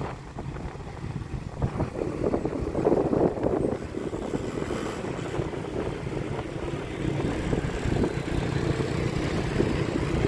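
A moving vehicle's engine and road noise, a steady low rumble.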